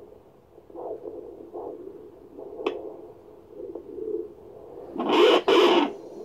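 Handheld fetal doppler's speaker giving a muffled whooshing hiss as the probe is pressed into the lower abdomen, searching for the fetal heartbeat. It is interrupted by two loud bursts of hiss about five seconds in.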